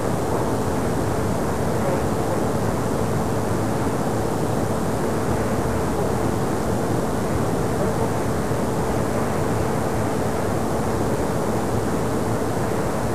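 Steady loud hiss and rumble of an amplified EVP recording, with a faint steady hum under it. The uploader hears a faint voice in the noise saying "Hate losing" about a second and a half in and again near the end.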